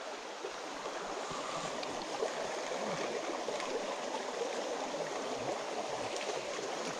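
Shallow rocky creek running over stones: a steady rush of water.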